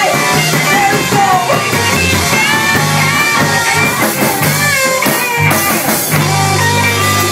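Live rock band playing: women singing a melody over electric guitar and a bass holding long low notes.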